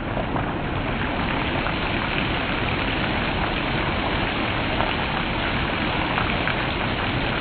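Steady rain falling, an even hiss with faint patter of drops.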